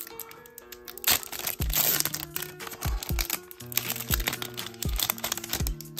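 Foil trading-card pack wrapper crinkling as it is torn open and peeled back by hand, over background music.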